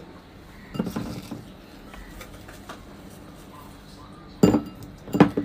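Kitchenware clinking against a large glass bowl: a few soft knocks about a second in, then louder, sharper clinks near the end.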